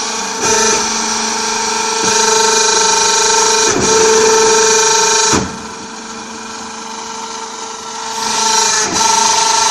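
Hydraulic interlocking clay brick press running: its pump and motor give a loud, steady whine with a few overtones, punctuated by a few brief knocks. Past the middle the whine drops to a quieter hum for a couple of seconds, then comes back up.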